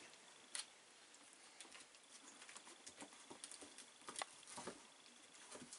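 Near silence with faint, scattered light ticks and taps from four-week-old Staffordshire Bull Terrier puppies' paws and claws moving over the pen's blanket and plastic puppy-pad tray. A sharper click comes about half a second in and another about four seconds in.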